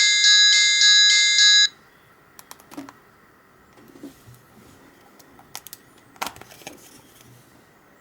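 An Alcatel 2000X ringtone playing loudly through an Alcatel 1054D phone's speaker, quick repeated high notes, cut off abruptly under two seconds in. Then a few faint clicks and knocks.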